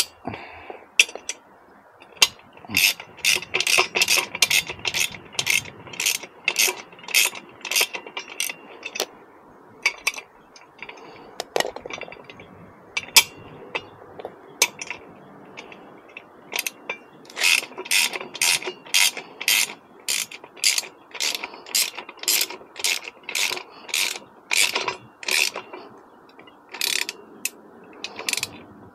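Ratcheting wrench clicking as it is swung back and forth to tighten a bolt on a steel hitch bike rack. The clicks come in runs of about two to three a second, with short pauses between runs.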